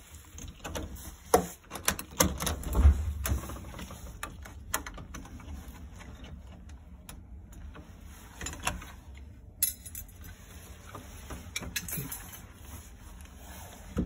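Scattered clicks, taps and knocks of a screwdriver and hands working on a smart deadbolt's interior unit, unscrewing it and taking off its cover. The loudest knocks come in the first few seconds.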